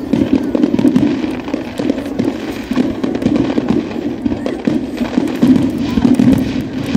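Fireworks display: aerial shells bursting one after another in a dense, unbroken run of bangs and crackles.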